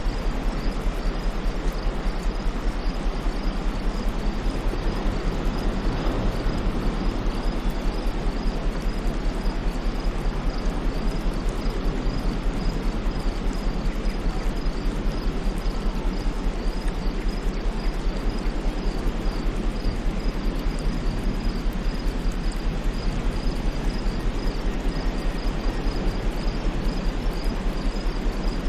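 Steady white-noise hiss with a constant low rumble under it. A high insect chirp repeats in an even, quick rhythm above it.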